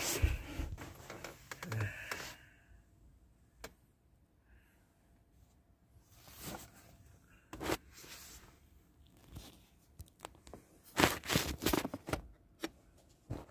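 Handling and rustling noises: scattered clicks and short scrapes with a quiet stretch early on, then a denser run of clicks and rustles about eleven seconds in, as someone settles down to rest.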